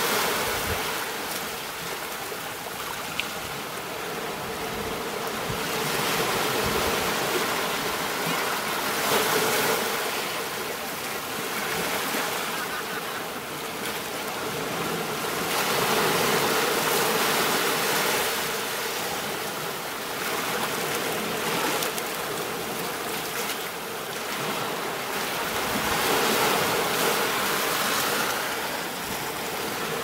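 Ocean waves washing onto a beach: a steady hiss of surf that swells and eases every few seconds.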